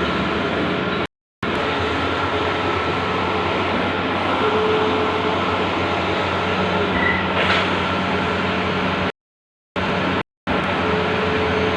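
Bluewin large-format outdoor digital printer running, a steady mechanical whir and hum with faint steady tones through it. The sound drops out to silence three times for a moment.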